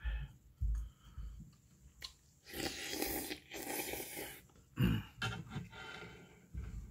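Close-up eating sounds of beef tripe and intestine soup: chewing, then about two and a half seconds in two long slurps from a spoon held to the pot, followed by more chewing.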